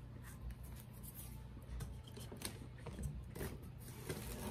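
Faint rustling and light knocks of hands handling plastic-wrapped nursery pots and moving the camera, over a low steady hum.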